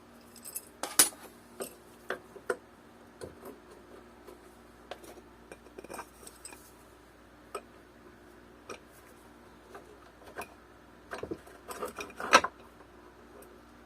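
Small metal hardware (washers, a nut and bolt) clicking and clinking as it is handled and fitted, in scattered light taps with a louder flurry of knocks near the end.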